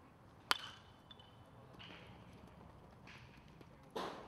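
Baseball bat striking a pitched ball: one sharp crack about half a second in with a brief ring after it. A second, duller knock comes near the end.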